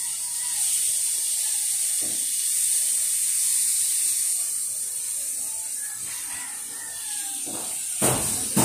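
A steady high-pitched hiss, with two sharp knocks about half a second apart near the end.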